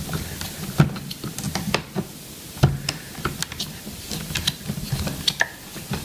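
A small screwdriver backing out the small screws that hold a Roomba 580's side-brush motor in its plastic housing: irregular light clicks and handling noise of metal on plastic.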